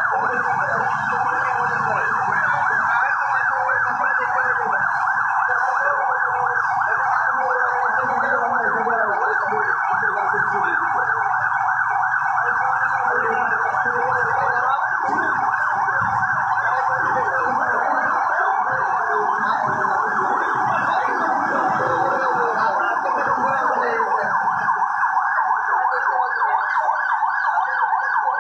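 Several emergency vehicle sirens sounding at once, overlapping in a fast rising-and-falling warble that goes on without a break. Beneath them is an uneven low rumble that drops away near the end.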